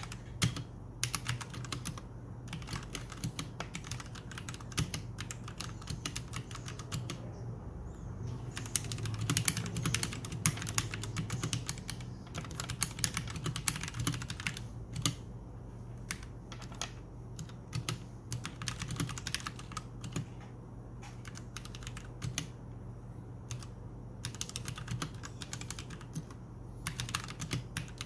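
Typing on a stock Royal Kludge RK G68 mechanical keyboard with red switches: a steady patter of key clicks that speeds up into a quicker, louder flurry about a third of the way in.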